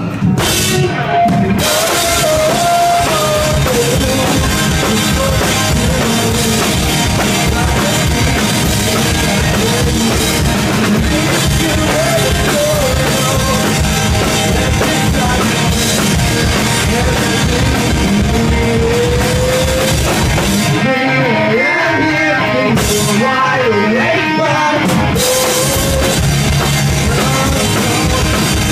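Rock band playing live, loud, with drum kit, guitars and a singer. Around three quarters of the way through, the drums and cymbals drop away for about four seconds, leaving the singing more exposed, then the full band comes back in.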